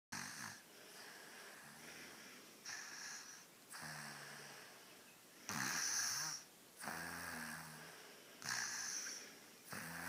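A sleeping young child snoring through an open mouth in a steady rhythm, a breath about every second and a half, alternating a low buzzing snore with an airy, hissing breath.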